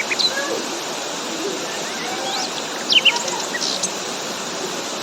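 Steady rush of falling water from a waterfall, with a few short, high bird chirps at the start and again midway.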